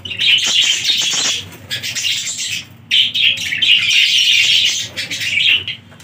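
Budgerigars chattering and warbling together in a run of bursts, with brief pauses between them.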